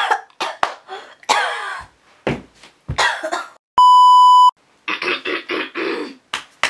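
A woman coughing in a fit, a string of short harsh coughs. A little under four seconds in, a loud, steady electronic test-tone beep, the kind played with TV colour bars, cuts in for under a second; then the coughing goes on.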